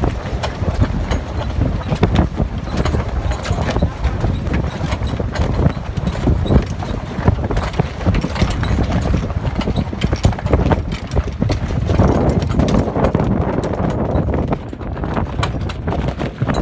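Wind rumbling on the microphone over a rapid, irregular clatter of knocks and snaps from a schooner's slack sails luffing and her rigging and blocks rattling as she tacks through the wind.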